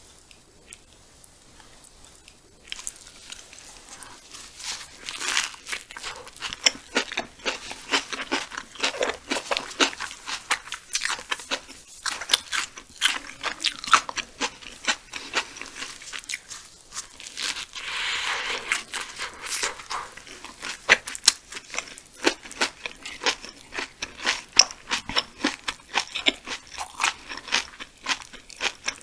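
Close-miked eating: rapid wet chewing clicks and smacks of a mouth working through barbecue meat in a soft bun. It starts about two and a half seconds in, after a short quiet moment, with a denser burst of noise around the middle.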